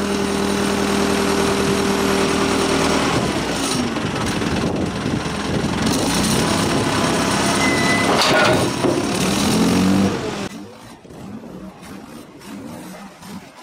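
Volvo BM 642 backhoe loader's diesel engine running under load while the front loader's hydraulics move the bucket, with a steady whine for the first three seconds. The sound goes much quieter about ten seconds in.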